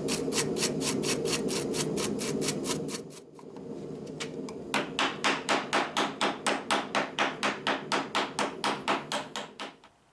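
Hand hammer rapidly striking a red-hot rebar spoon bowl down into a damp hickory spoon form, about four blows a second, with a steady low hum beneath. The hammering pauses briefly about three seconds in, then resumes, and stops just before the end.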